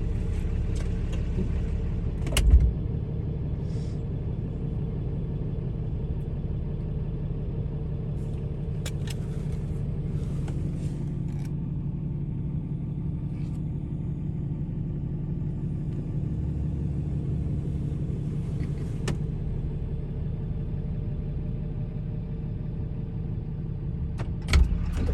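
Tow vehicle pulling a fifth-wheel RV at low speed: a steady low engine and road rumble with scattered knocks and clicks, and one louder thump about two and a half seconds in.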